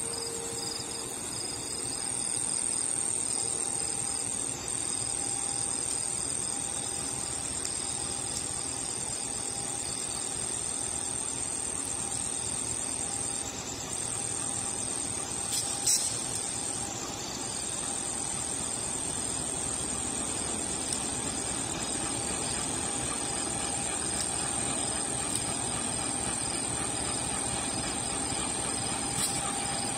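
Crickets chirring in a steady high trill over the low running of a CC201 diesel-electric locomotive approaching along the track. A single short knock about sixteen seconds in.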